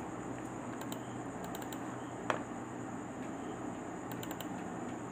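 A single sharp computer mouse click about two seconds in, over a steady hum and hiss from the recording microphone.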